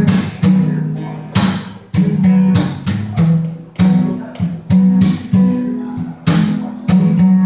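Acoustic guitar strummed in a steady rhythm, each chord struck sharply and ringing out before the next.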